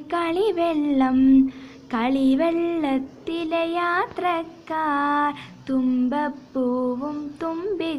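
A young girl singing a Malayalam children's rhyme from her first-class textbook, unaccompanied, in short melodic phrases with brief pauses between them.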